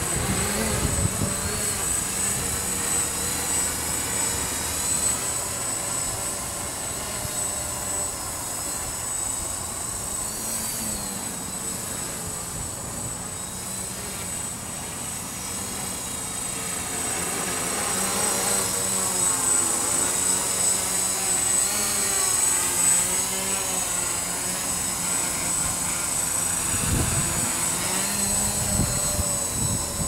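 Witespy quadcopter's electric motors and propellers whining in flight, the pitch wavering up and down as the motors speed up and slow down to hold it steady in gusty wind. Wind rumbles on the microphone about a second in and again near the end.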